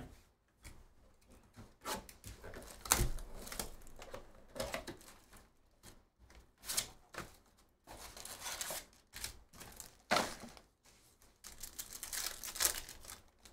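Plastic wrapping crinkling and tearing in a run of short rustles as a shrink-wrapped trading-card box is opened and a card pack is torn open by hand.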